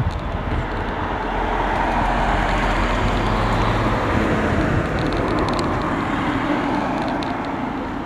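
A road vehicle passing by: a steady, loud noise that swells over the first couple of seconds and fades away toward the end.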